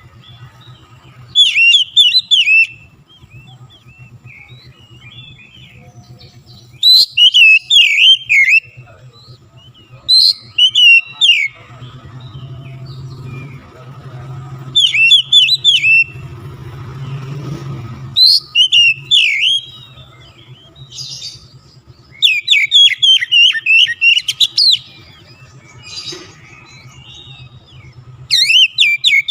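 Oriental magpie-robin (kacer) singing loudly and vigorously in repeated bursts of rapid, sweeping whistled phrases, with short pauses between bursts and a faint low hum beneath.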